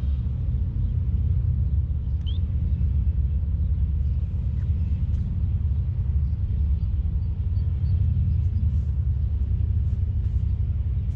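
A steady low rumble that cuts in suddenly and runs on without a break.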